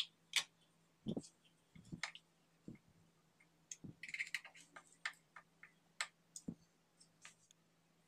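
Scattered light clicks and taps of a small screw and screwdriver being worked into a chrome wall holder for a bidet sprayer. A short run of quick, scratchy clicks comes about four seconds in.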